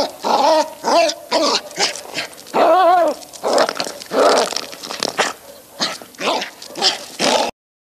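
An animal's fight cries: short yelping calls that rise and fall in pitch, about two a second, mixed with rougher snarling calls, cutting off suddenly near the end.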